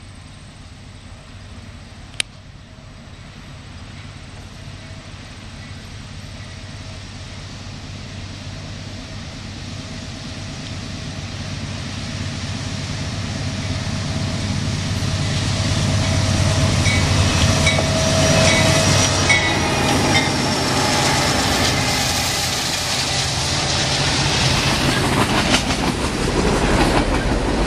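Canadian National diesel freight train approaching and passing. The locomotives' engines grow steadily louder for about sixteen seconds, their pitch falling as they go by. Then the freight cars rumble and clatter past on the rails. A single sharp click sounds about two seconds in.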